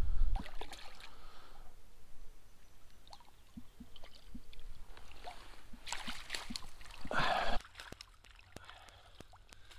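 A small hooked rainbow trout splashing and thrashing at the water's surface as it is played to the landing net, with scattered small splashes, then a bigger splash about seven seconds in as the net scoops it out of the water.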